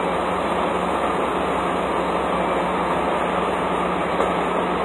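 Steady machinery drone with a constant low hum, even in level throughout, and one brief soft knock about four seconds in.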